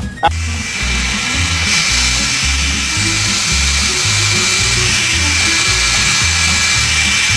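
A small motor running steadily with a loud, even hiss and a thin high whine, starting abruptly just after the start, over background music with a pulsing bass beat.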